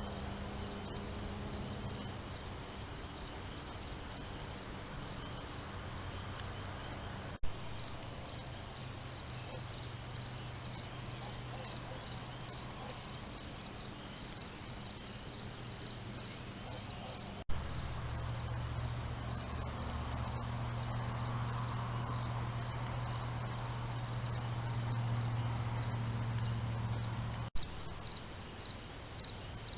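Insects chirping steadily at a high pitch, the chirps pulsing about two to three times a second in places, over a low steady hum. Short clicks break in about a third and two thirds of the way through, and again near the end.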